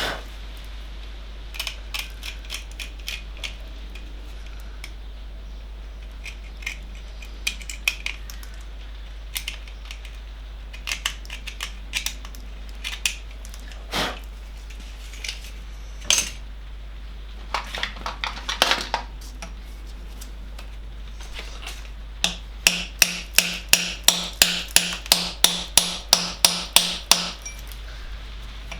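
Scattered clicks and scrapes of metal tools on the engine block, then near the end a fast run of sharp hammer blows, about three a second, on a punch driven into a core plug of a 998 cc A-series engine block to pierce it for removal.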